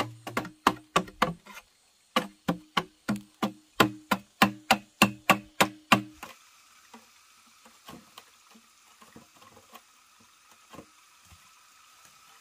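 A fast, even run of sharp knocks, about three a second, with a brief break near two seconds in, stopping about six seconds in. Then only faint, scattered small clicks over a light hiss.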